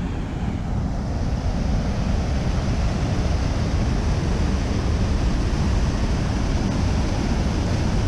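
Water pouring over a concrete spillway dam, a steady rushing, mixed with wind buffeting the microphone, which makes the loudest part of the sound, a gusty low rumble.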